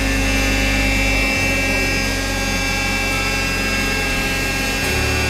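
Hydraulic power unit running, its electric motor and pump giving a steady hum with several steady tones. The low hum shifts in pitch abruptly about a second in and again near the end.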